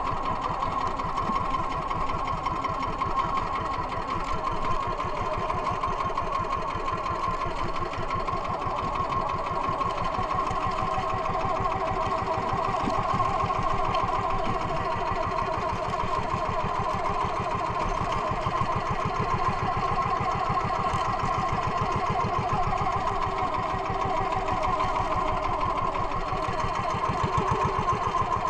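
Small engine of a motorized outrigger boat running steadily while under way, a fast, even pulse that holds the same speed throughout.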